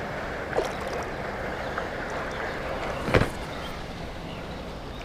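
Water sloshing and lapping against a float tube while a hooked wels catfish is at the surface beside it, with a brief sharp thump about three seconds in.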